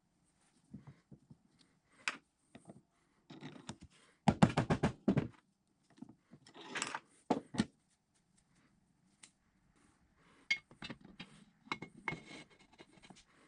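Steel drill press spindle and quill parts being handled and fitted by hand: scattered metal clicks and scrapes, with a quick run of about ten knocks lasting about a second about four seconds in, the loudest sound here.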